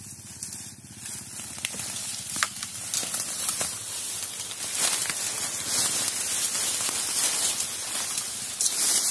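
Footsteps crunching and rustling through dry fallen bamboo leaves, with many small crackles and snaps as stems and twigs are pushed aside, getting louder over the first few seconds.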